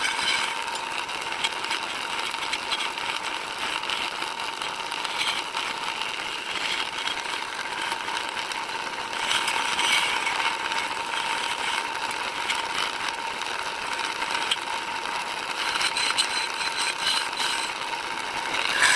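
Wood lathe running while a wooden charpai leg is turned, a steady whine over a continuous noisy hiss of the tool cutting the spinning wood.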